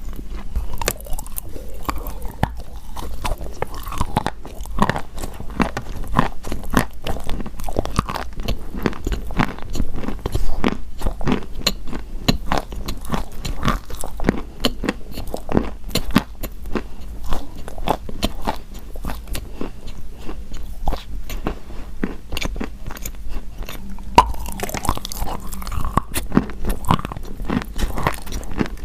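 Close-miked chewing of pieces of chalk: dense, continuous crunching and crackling as the chalk is bitten and ground between the teeth.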